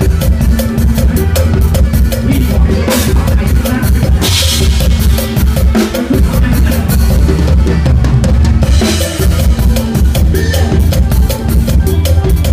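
Drum kit played in a fast, driving mor lam sing beat, heard close to the kit with the rest of the live band behind it. Cymbal crashes ring out about four seconds in and again around nine seconds.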